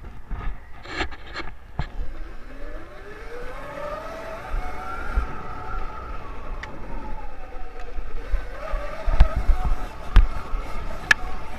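Electric motor of a custom-built electric Puch Maxi moped whining under way, its pitch rising as it speeds up over the first few seconds and then falling as it slows. Scattered knocks and rattles throughout, with loud low thumps near the end.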